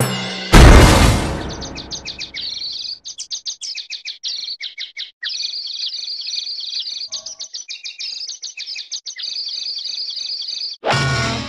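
Cartoon sound effects: a loud crash about half a second in, then rapid high bird tweeting in quick runs for about eight seconds, then another sudden loud hit near the end.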